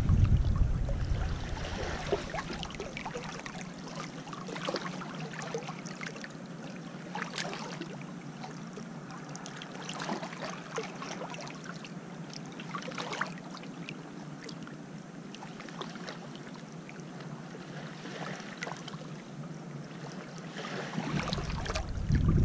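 Small waves lapping and trickling over pebbles at the water's edge, with many little splashes. Wind buffets the microphone near the start and again near the end.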